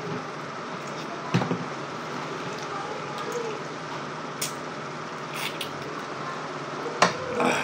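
Eating at the table: a metal spoon and fork clinking a few times against a plate and bowl, with wet chewing and mouth sounds over a steady background hiss.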